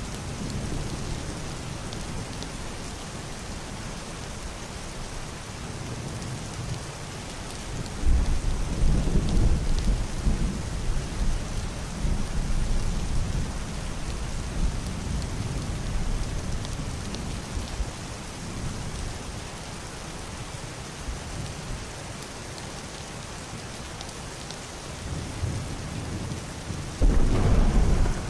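Heavy rain drumming steadily on a roof and window, with muffled, rolling thunder rumbling in about a third of the way in and dying away over several seconds, then another louder peal of thunder near the end.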